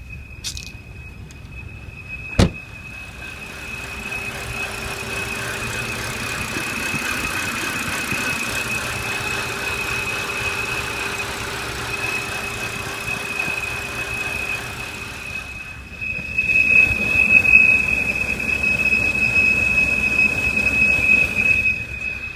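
High, steady whistle from a 2007 BMW 328i's straight-six engine, over the engine and road noise. The whistle is not a belt squeal; owners who fixed the same noise traced it to a cracked valve cover or a slightly leaking valve cover gasket. There is one sharp click about two and a half seconds in, and the whistle and the running noise grow louder about sixteen seconds in.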